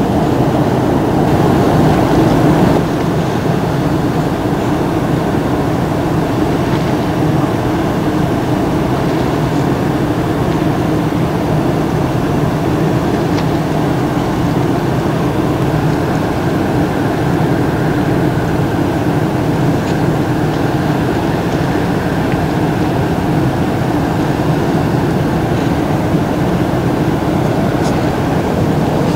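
Steady mechanical rumble with a low hum over it, a little louder in the first few seconds.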